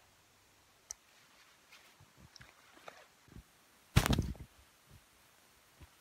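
A hiking backpack being taken off: faint clicks and rustling of straps and buckles, then a loud rustling knock about four seconds in as the pack comes down.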